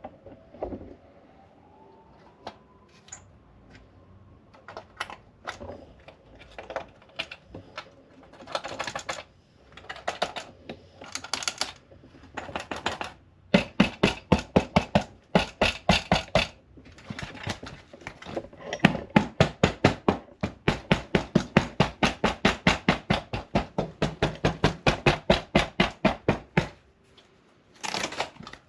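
Metallic clicking and rattling from the S15 Silvia rear seat's metal hog rings that hold the seat fabric, loosened with age and the cause of the rattle. Scattered clicks at first, then a steady fast run of about four to five clicks a second through the second half.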